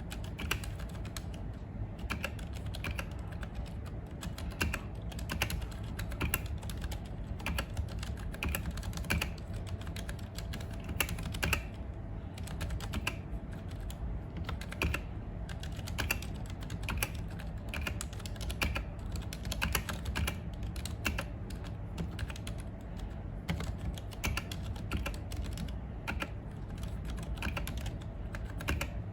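Continuous typing on a Ducky One 2 Mini 60% mechanical keyboard with Cherry MX Silent Red switches: a rapid, unbroken stream of keystrokes over a low steady background hum.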